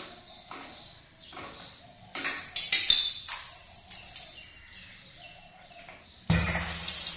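Sharp metallic clicks and clinks as the chrome double bib cock and its hand shower are handled, then about six seconds in a sudden loud hiss of water spraying out as a valve is opened.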